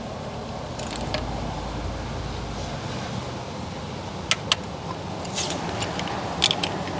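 A few sharp, scattered metallic clicks and clinks of a socket and hand tools on valve cover bolts as they are run down by hand, over a steady background hiss.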